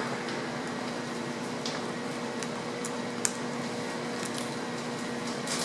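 Steady background hum with a few faint, sharp clicks from handling an iPhone 5C and a suction cup while prying its screen up, the clearest click about three seconds in.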